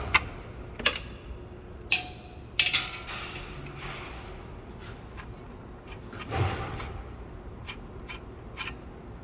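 Handling noises: a series of sharp knocks and clicks, the loudest in the first three seconds, with a longer scraping rush about six and a half seconds in and a few fainter ticks near the end.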